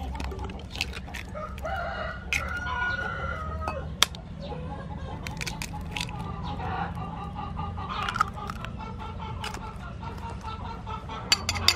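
Chicken eggs tapped and cracked against a ceramic bowl, sharp clicks with the loudest about four seconds in, while a rooster crows and clucks in the background. Near the end a quick run of clicks starts as the eggs begin to be beaten in the bowl.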